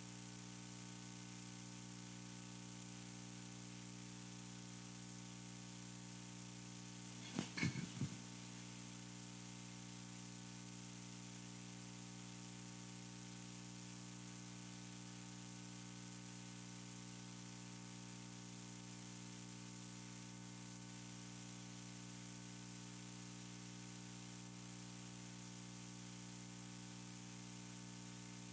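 Steady electrical hum with a layer of hiss from the microphone and audio chain, the white noise that the sound check is trying to get rid of. A brief sound of three quick pulses comes about seven seconds in.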